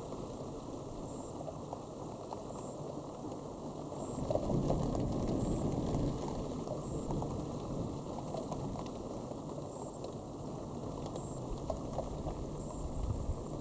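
Thunder: a low rumble that swells about four seconds in and eases off a few seconds later, over a steady rushing background.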